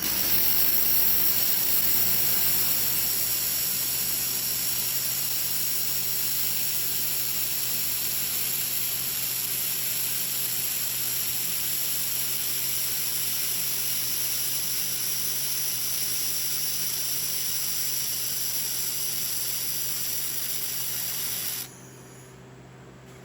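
4000 W handheld laser welder running a long weld pass: a steady high hiss of the weld and shielding gas over a low machine hum, cutting off suddenly near the end and leaving a fainter hum.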